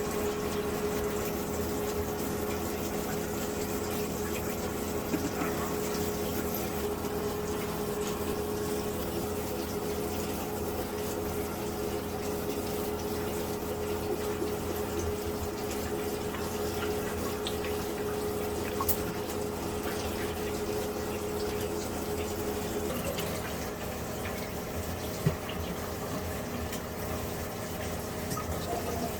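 Water running steadily from a tap, with a steady hum-like tone in it that shifts higher a little before the end. A few light clicks sound over it.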